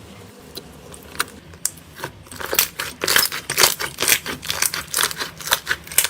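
Slime being squeezed and worked by hand, giving a few scattered sticky clicks and then, from about two seconds in, a dense run of crackling pops.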